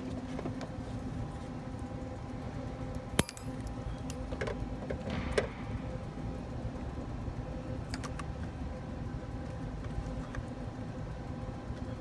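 Hands handling spark plug wires and an inline spark tester on an engine: scattered clicks and light rattles of plastic and metal, with one sharp click about three seconds in, over a steady low hum.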